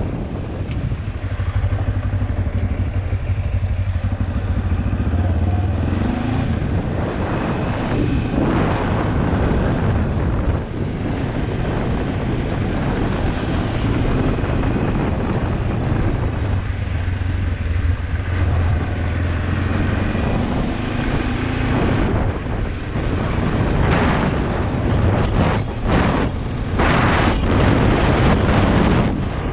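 Kawasaki KLE 400 parallel-twin engine running as the motorcycle is ridden, its revs rising and falling several times. Sharp knocks and rattles come in the last few seconds.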